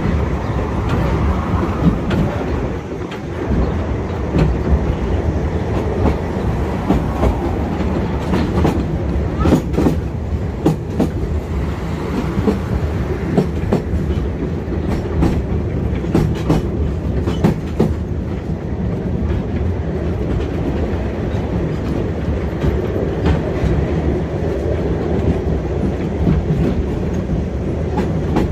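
An old rail car running along the track: a steady low rumble with irregular clicks and clacks of the wheels over rail joints.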